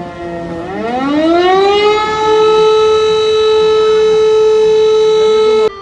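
Air-raid warning siren sounding: its pitch rises over the first couple of seconds, then holds one steady high wail. Just before the end it breaks off suddenly, leaving a fainter steady siren tone.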